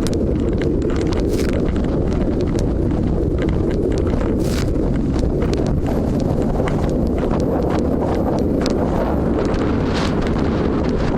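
Steady low rumble of a boat under way, with wind buffeting the microphone and scattered irregular clicks and knocks.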